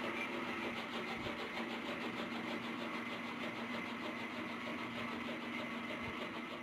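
An engine running steadily at a constant speed, with a fast, even pulsing and a steady hum.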